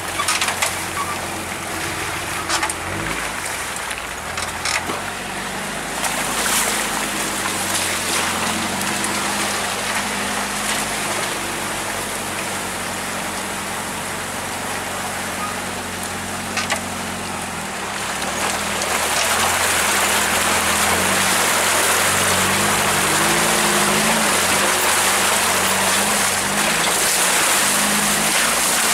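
Four-wheel-drive truck driving a muddy, water-filled trail: the engine running steadily under the hiss and splash of tyres through mud and water. The splashing grows louder about two-thirds of the way in and stays loud.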